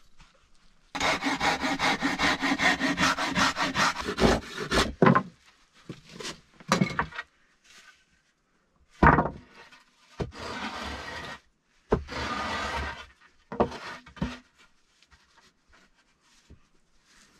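Hand saw cutting through a wooden board to trim off the excess: a quick run of rhythmic strokes for about three and a half seconds, then shorter bouts of sawing, with a sharp knock about nine seconds in.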